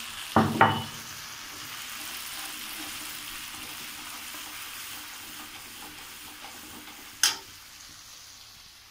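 Onion, garlic and spice masala frying in oil in a kadhai, sizzling steadily while a metal ladle stirs it. Two loud knocks of the ladle against the pan come about half a second in, and one sharp click comes near the end.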